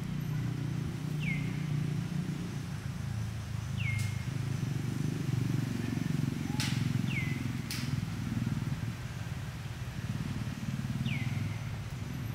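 A steady low rumble like a running motor, with four short chirps sliding down in pitch spread through it and a few sharp clicks near the middle.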